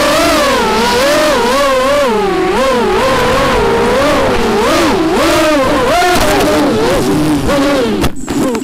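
Cobra 2204 2300 kV brushless motors of an FPV racing quadcopter whining, their pitch rising and falling quickly with the throttle. About eight seconds in there is a sharp knock as the quad hits foliage, and the motor sound breaks up.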